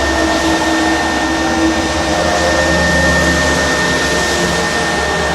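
CNC router running as its axes are jogged: a steady whirring motor noise with a thin high tone and lower humming tones that shift pitch and come and go as the motors change speed.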